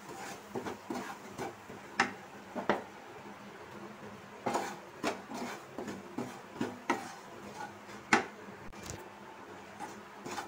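Spatula scraping and knocking against a non-stick kadhai as ground coriander is stirred and roasted in ghee. The knocks come at irregular moments, the sharpest about two seconds in and again near eight seconds.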